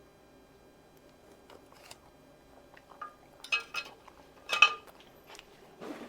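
Utensils clinking against a plate or dish, about five short clinks in the second half, the loudest about four and a half seconds in.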